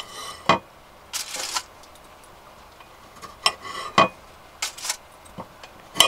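Kitchen knife knocking and scraping against a ceramic plate as herbs, spring onion and cherry tomatoes are cut on it: several sharp, irregularly spaced knocks and a few short scrapes.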